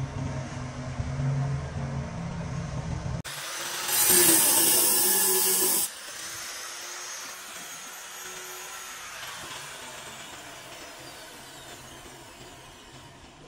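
Handheld angle grinder cutting a marble tile: a loud, high-pitched cutting noise for about two and a half seconds, cutting off suddenly, followed by a quieter whirr with a falling pitch that fades away. Before it, a low steady hum.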